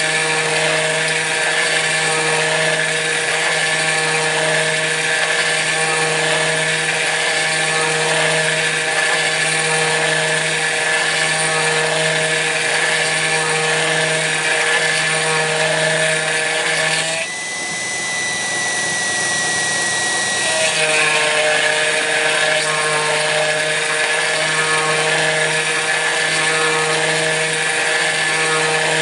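Kress FME-1050 router spindle on a CNC mill cutting aluminium: a steady high whine mixed with harsh cutting noise and a low pulsing hum. About 17 seconds in, the cutting noise drops away for about three seconds, leaving a single steady whine, then the cutting resumes.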